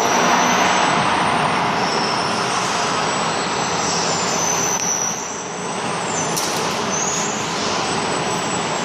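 Electromechanical three-roll plate bending machine running, a loud, steady mechanical noise from its electric motor and gear drive as the rolls turn.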